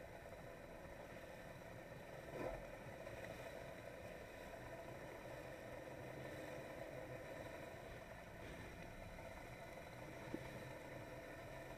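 Polaris SL 900 personal watercraft's three-cylinder two-stroke engine running at low speed: a faint, steady hum, with a brief thump about two and a half seconds in and a short sharp click near the end.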